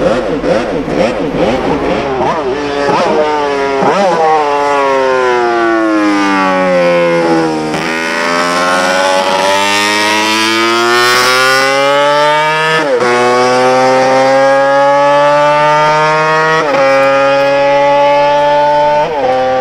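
Honda RC149's 125 cc four-stroke inline-five racing engine. It revs in short, choppy blips at first, then its high-pitched note falls and climbs again as the bike pulls away hard through the gears, with a sudden drop in pitch at each upshift, three times near the end.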